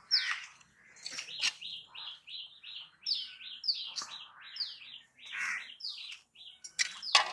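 Small birds chirping in a quick run of short, high, downward-sliding chirps, several a second. Sharp clicks come in between, the loudest just after the start and near the end.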